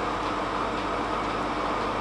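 Metal lathe running under power feed while the turning tool takes a continuous cut along a steel-coloured connecting rod: a steady machine noise with a few constant tones through it.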